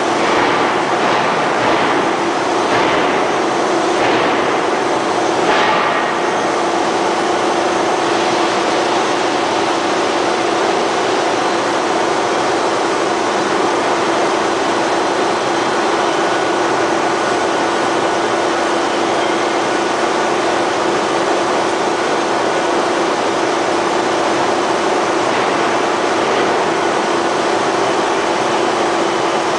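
Steady, loud machinery noise of a steel forging works, with a constant hum running under it and a few faint knocks in the first few seconds.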